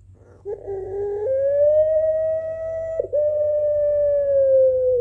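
Puter pelung, a domestic barbary dove, giving its long drawn-out coo: a rough two-note opening about half a second in, then one long steady note held for nearly four seconds, broken briefly near the middle and sagging slightly at the end.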